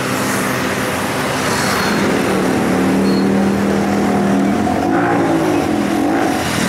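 Motorcycle and ATV engines running as they ride past one after another, with a rise and fall in engine pitch near the end as one is revved and eased off.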